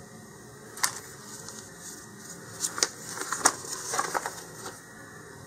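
A paper instruction sheet rustling and crackling as it is handled and unfolded: one sharp crackle just under a second in, then a cluster of crinkles and crackles between about two and a half and four and a half seconds.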